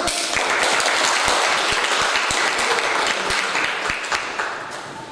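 Audience applauding and clapping, dense at first and dying away near the end.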